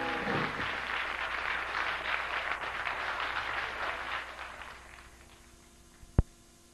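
A band's final chord cuts off, followed by audience applause that fades out over about four seconds. A single sharp click near the end.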